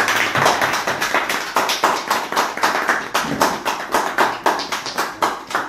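A small group of people applauding: many hands clapping quickly and steadily.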